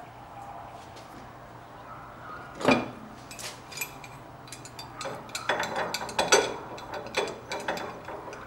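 Metal hand tools handled on a workbench: one loud clank about three seconds in, then a run of quick clicks and clinks as a large wrench is fitted onto a steering rack.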